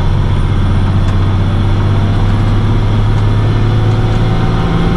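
Box truck driving, heard from inside the cab: a steady low engine drone with road noise.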